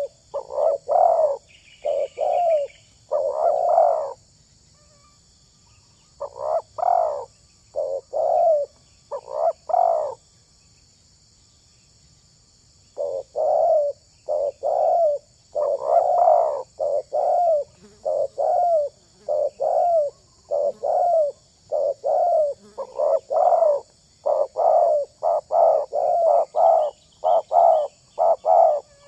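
Spotted dove (tekukur) cooing: repeated phrases of low, rounded coos, broken by pauses of a few seconds, then a quicker, denser run of coos in the last third.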